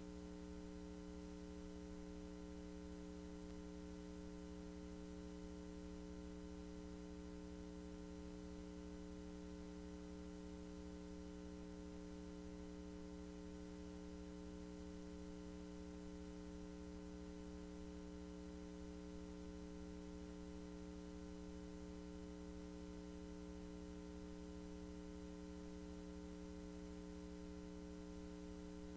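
Steady electrical hum: a low buzz made of several unchanging tones over a faint hiss, with no other sound.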